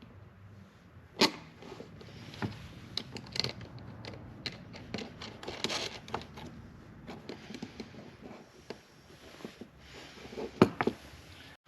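Hand work at a workbench: scattered clicks, taps and scrapes of tools and heavy battery cable being handled, with a sharp knock about a second in and two more near the end.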